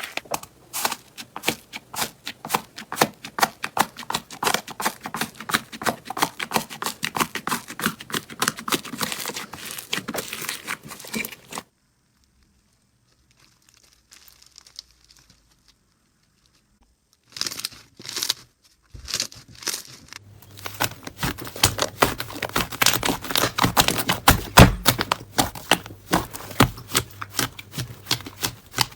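Slime being squished and stretched by hand, a dense run of sticky clicks and crackles. It cuts out to near silence for about five seconds in the middle, then the crackling starts again.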